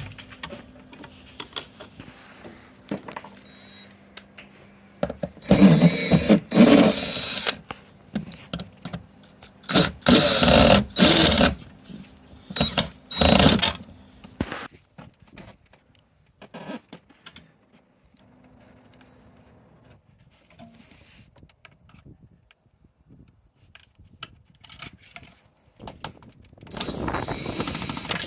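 Power drill run in several short bursts of a second or two, with small clicks and handling between, as screws are driven out to remove a hot tub's spa pack.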